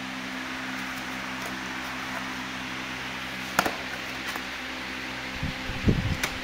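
Steady mechanical hum with several low steady tones. A sharp click comes about three and a half seconds in, and a cluster of low bumps and another click come near the end, as a handlebar with brake levers and coiled cables is handled.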